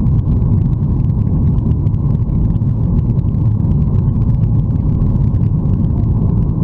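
Steady low rumble of a Boeing 737-800's CFM56-7B engines at climb power and the airflow past the fuselage, heard inside the cabin during the climb after takeoff.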